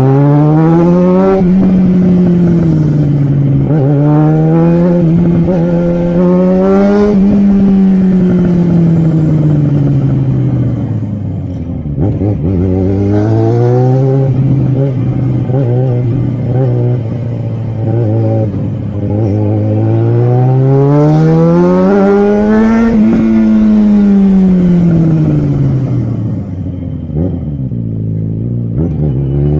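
Yamaha XJ6's 600 cc inline-four engine and exhaust running loud under load. The pitch climbs smoothly as the throttle is opened and sinks back as it is eased off, several times over, with steadier stretches of even running in between.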